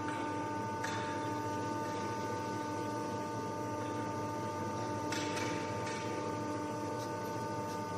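Steady hum of running machinery with a constant whine, and faint light knocks about a second in and again about five seconds in.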